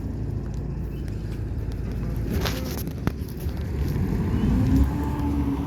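Steady low engine rumble, with two sharp knocks near the middle and the engine's tone rising and holding from about four seconds in.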